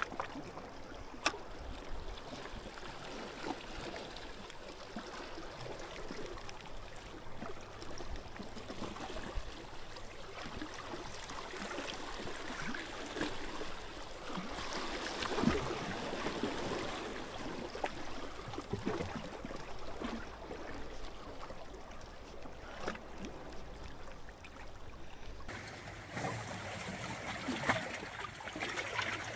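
Water lapping and sloshing, with a sharp click about a second in.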